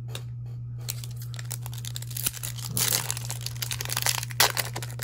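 Foil wrapper of a Topps Stadium Club baseball card pack being torn open and crinkled by hand: a few scattered crackles, then dense crinkling and tearing from about halfway through. A steady low hum runs underneath.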